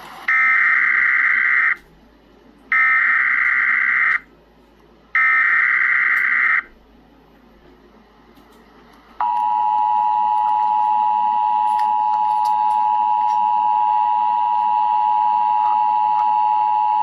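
Emergency Alert System header: three bursts of SAME digital data tones about a second apart, then the two-tone EAS attention signal held steady for about eight seconds, the signal that a severe thunderstorm warning message follows.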